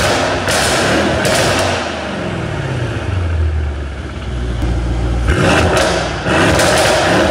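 Mercedes-AMG E63 S 4.0-litre twin-turbo V8 with a stage 2 tune and catless downpipes, revved hard, with sharp exhaust cracks and pops. The revs fall to a low steady run around the middle, then climb sharply again with more cracks from about five seconds in.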